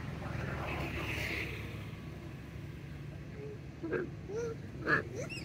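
Steady low motor-vehicle engine rumble, with a brief hiss about a second in and a few short voice-like calls about four and five seconds in.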